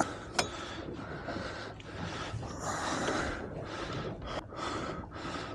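Heavy breathing close to the microphone, in uneven swells, with a sharp click right at the start and another just after.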